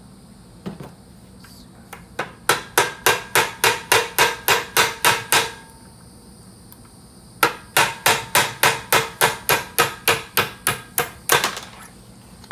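Hammer striking a pin punch to drive a 1/8-inch roll pin out of a manual transmission's shift shaft: two runs of sharp metallic strikes, about four a second, with a pause of about two seconds between them.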